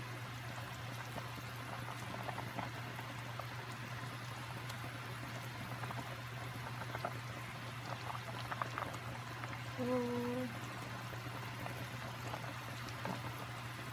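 Pot of sinigang broth with salmon head and vegetables simmering, bubbling and crackling softly as a wooden spoon stirs through it. A steady low hum runs underneath, and a brief pitched tone sounds about ten seconds in.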